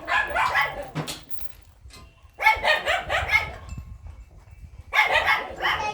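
Dogs barking in three short runs of barks.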